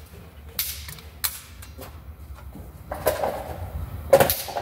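Hand tube bender clicking and creaking as it bends a metal power-steering pressure line. There are a few sharp clicks, then a longer creak about three seconds in and a loud click near the end.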